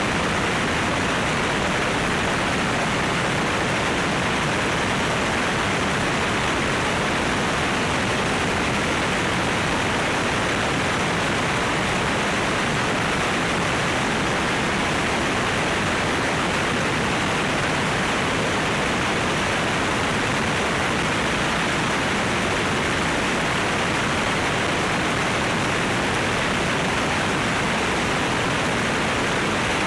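Steady rush of airflow over a microphone mounted outside a light aircraft cruising at about 165 knots. It is an even, unbroken hiss, with no engine or propeller note standing out.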